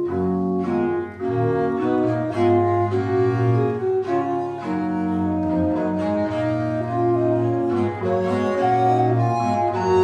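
Bowed strings playing the slow opening of an 18th-century sacred song setting, with a low bass line under held chords.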